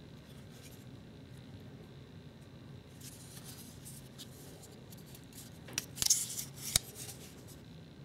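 CRKT Hammond Cruiser liner-lock pocket knife being handled: faint rubbing, then a short cluster of clicks about six seconds in, ending in one sharp click.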